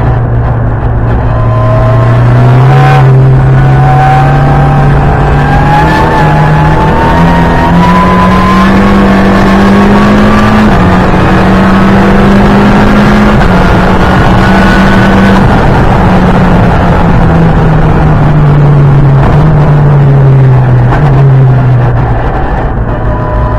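Ford Fiesta EcoBoost track car's engine, very loud inside the cabin, pulling hard with its note climbing for about ten seconds, a brief dip, holding high, then falling away slowly over the last several seconds as the car slows.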